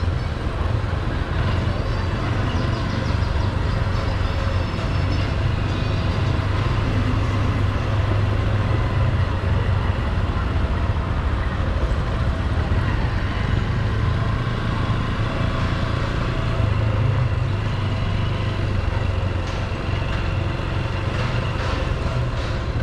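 Motorcycle engine running steadily at low road speed, a constant low drone, with street traffic around it.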